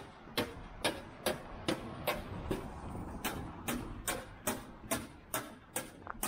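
Footsteps of someone walking at a steady pace, about two and a half sharp steps a second.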